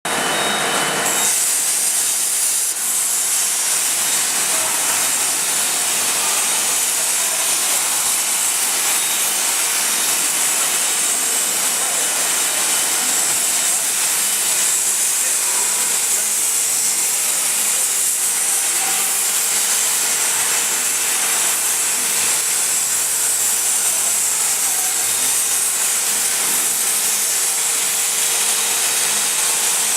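Plasma torch of a CNC plasma cutting machine cutting steadily: a loud, even hiss with a faint steady hum underneath.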